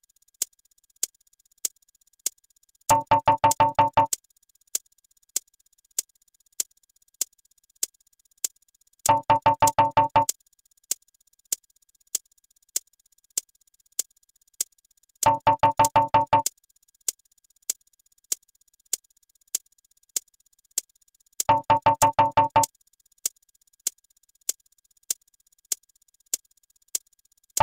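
Electronic ticking, about two sharp ticks a second, broken about every six seconds by a second-long burst of rapid pitched beeps, four times over.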